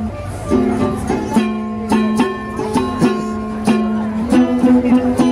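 A small acoustic guitar played with rhythmic strummed chords, its notes ringing between strokes as the chords change.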